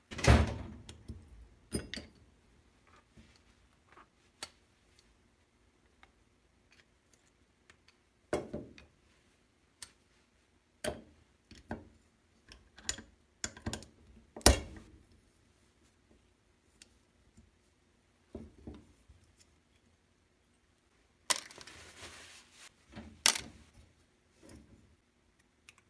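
Small metal carburetor parts clicking and clinking as they are handled and set down on a workbench, in scattered single knocks with a few louder ones, plus a rustling scrape about 21 seconds in.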